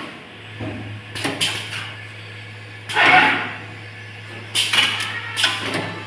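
Automatic lug crimping and ferrule marking machine at work: a steady hum with a series of mechanical clacks and knocks from its moving stations, the loudest about three seconds in.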